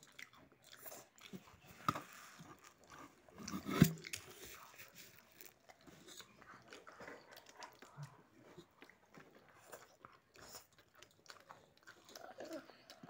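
Close-up eating sounds: chewing and small wet clicks of fingers mixing food on a plate, with a louder knock about four seconds in.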